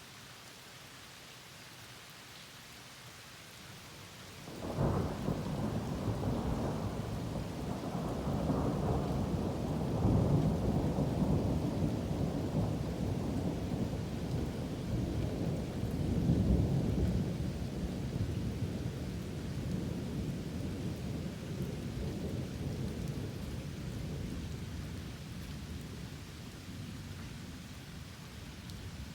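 Thunder from a lightning storm: a sharp crack about five seconds in, then a long rolling rumble that swells twice and slowly fades, over steady rain.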